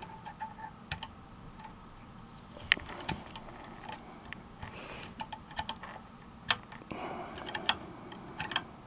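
Small metal clicks and taps of a flat wrench on the bushing nuts of chrome Schaller guitar tuners as they are tightened into the headstock, coming irregularly, with faint rubbing and handling noise between the clicks.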